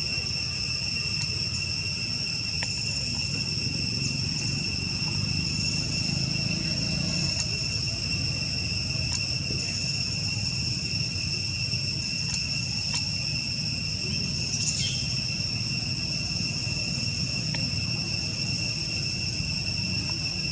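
Steady high-pitched insect drone over a low rumble, with a few faint clicks and one brief rising squeak about fifteen seconds in.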